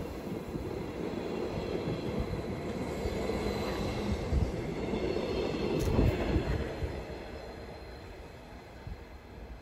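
Stadler GTW regional electric railcar pulling out and running past, its wheels rumbling on the track with a faint wheel squeal. A sharp click comes about six seconds in, and then the sound fades steadily as the train moves away.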